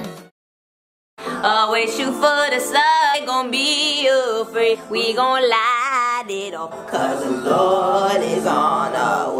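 Background music: a song whose singer's voice runs in long, wavering, ornamented lines over the backing. It cuts out to silence for about a second near the start, then comes back.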